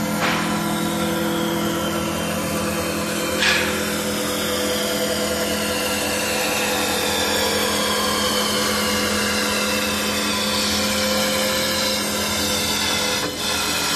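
CNC wood-turning lathe running: a high-speed router spindle cuts a spinning wooden rod over a steady motor hum, with whining tones that slowly fall in pitch. A short louder burst of cutting about three and a half seconds in.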